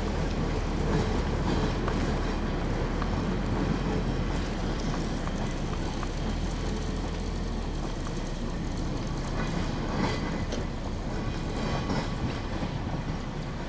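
A 1909 Niles electric steeplecab line car rolling along street track: a steady rumble of motors and wheels, with a few sharp clicks in the second half.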